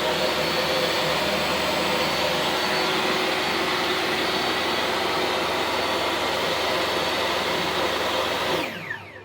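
Table saw running steadily, then switched off near the end; the motor and blade wind down, falling in pitch.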